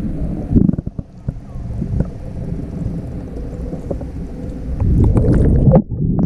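Muffled underwater noise from a GoPro held beneath a swimming pool's surface: low water rumble and sloshing with scattered knocks, louder about five seconds in.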